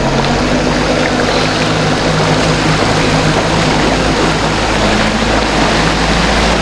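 Motor of a small open boat running steadily under way, a low even hum, with a constant rush of water along the hull.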